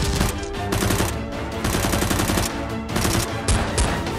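Rapid automatic-gunfire sound effects in bursts with short breaks, standing in for foam-dart blasters being fired, over background music.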